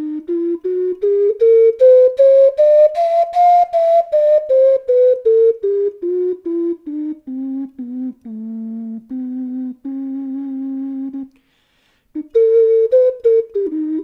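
12-hole bass C ocarina playing a scale: single notes step upward, then back down, ending on a few longer low held notes. After a brief pause near the end, quicker improvised notes begin. Its maker says this ocarina turned out off tune.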